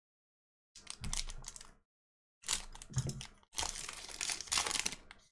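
Foil wrapper of a baseball-card pack crinkling and tearing as it is handled and ripped open, in three crackly stretches, the last and longest near the end.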